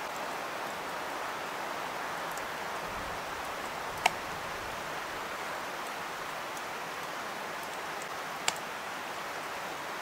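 Steady hiss of woodland background noise, with two sharp clicks: a loud one about four seconds in and a fainter one about four seconds later.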